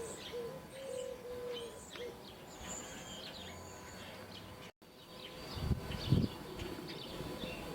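Faint birds calling and chirping in outdoor ambience, with a few low thumps about six seconds in.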